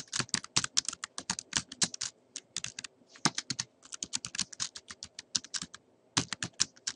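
Typing on a computer keyboard: a quick run of key clicks with a few short pauses.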